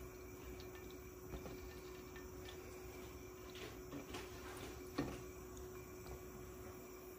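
Quiet kitchen with a steady low hum, a few faint ticks and a light knock about five seconds in.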